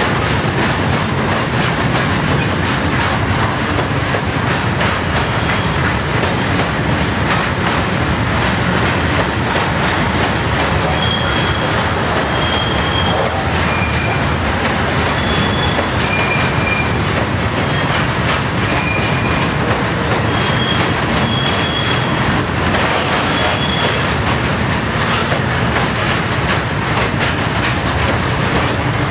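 Freight train of tank wagons rolling past, a steady loud rumble and clatter of wheels on the rails. Short high-pitched wheel squeals come and go through the middle stretch.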